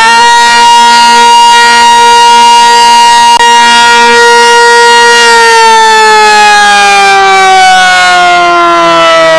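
Sentry 16V1T-B electromechanical siren sounding the attack signal, very loud: its tone holds at a steady pitch for about five seconds, then slowly winds down in pitch.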